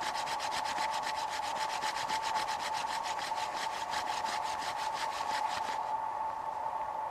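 Mullein spindle of a floating hand drill spinning in a cedar hearth board: a fast, even rasping, several strokes a second, that stops about six seconds in. A steady high tone hums underneath throughout.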